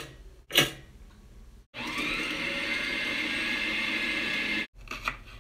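Electric stand mixer running steadily for about three seconds, starting with a short rising whir and cutting off suddenly. Before it, two short clicks sound near the start.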